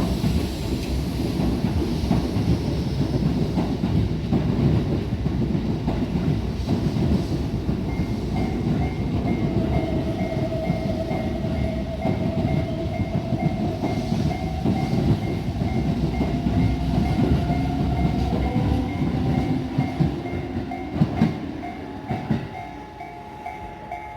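Tobu Skytree Line train passing close by over a level crossing, wheels clattering over the rails. The crossing's warning bell rings in a steady repeating two-tone pattern. The train noise fades away over the last few seconds while the bell keeps ringing.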